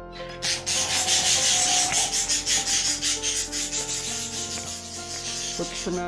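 Close, rapid scratching and rubbing against the microphone or something near it: a dense rasping made of many quick strokes.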